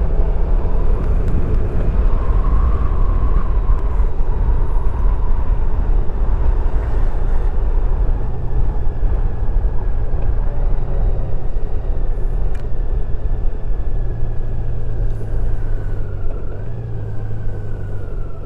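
Touring motorcycle riding at low speed, a steady engine hum under a heavy low rumble of wind on the microphone. Near the end the pitch drifts down and the level drops as the bike slows to a stop.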